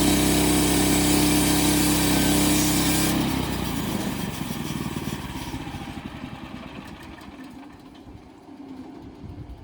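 Portable bandsaw sawmill's gas engine running steadily, then shut off about three seconds in, its firing pulses slowing and fading as it winds down.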